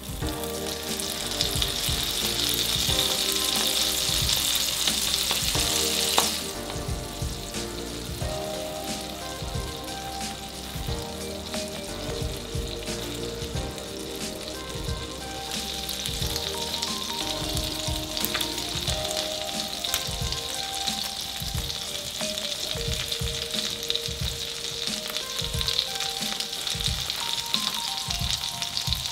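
Butter sizzling and spitting in a hot non-stick frying pan with sprigs of thyme and rosemary. The sizzle fades about six seconds in and comes back strongly about halfway through, over background music with a steady beat.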